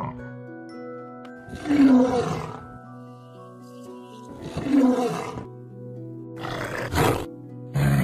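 A lion roaring twice, about two and five seconds in, over steady background music. A short noisy burst follows near the end.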